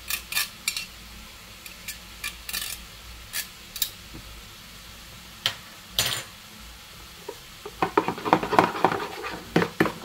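Metal teaspoon clicking and scraping against a small metal grater and a plastic bowl as grated garlic is knocked off into the sauce. From about eight seconds in, a quick, busy run of clinks and scrapes as the spoon stirs the sauce in the bowl.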